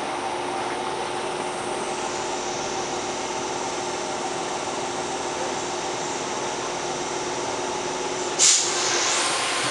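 Steady hum of a standing electric train carriage's on-board equipment, with several low steady tones. About eight and a half seconds in, a sudden loud hiss of compressed air being released from the train's pneumatics, settling into a steady high hiss.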